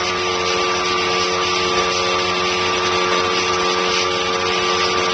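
Vacuum cleaner running steadily, a constant motor whine over a rushing of air, its hose wand drawing dust out of a ceiling air-return vent grille.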